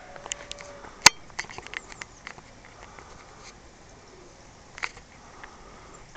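Scattered sharp clicks and taps at an irregular pace, thickest in the first two seconds, with a louder tap about a second in and another near five seconds.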